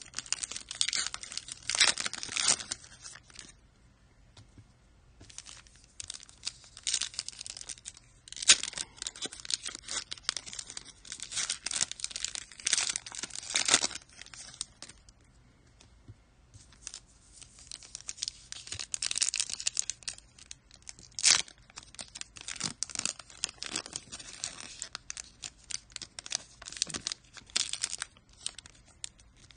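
Trading-card packaging being torn open and crinkled by hand, in irregular spells of tearing and rustling with short pauses between them.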